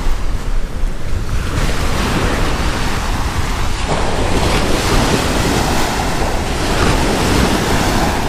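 Small sea waves breaking and washing up a sandy beach, the surf growing fuller about four seconds in, with wind buffeting the microphone.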